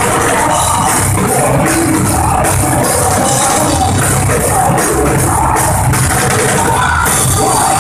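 Live rock band playing loud through the club PA: electric guitars and a drum kit, with a vocalist singing into the microphone.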